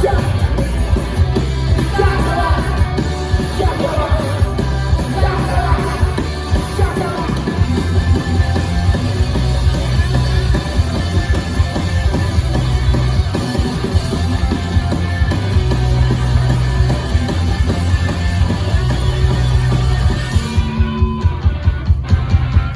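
A loud punk rock band playing live, with heavy bass, distorted guitars, drums and shouted vocals in the first few seconds. Near the end the sound thins to a regular pounding beat.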